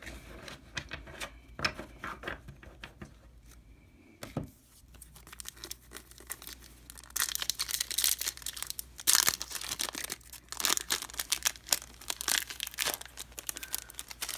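A Topps baseball card pack's wrapper being torn open raggedly and crinkled, with light scattered rustles at first and a louder, busier stretch of tearing and crinkling from about halfway on.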